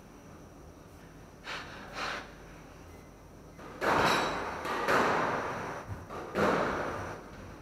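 Squash ball being struck and hitting the court walls, each hit ringing on in the court's echo: two softer knocks early, then three loud hits about a second or so apart in the second half.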